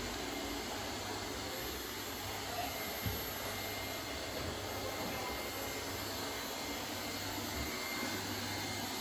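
Lefant Mini 6D robot vacuum running across a tiled floor: a steady whir of its suction fan and spinning side brush, with a faint steady whine. A brief knock about three seconds in.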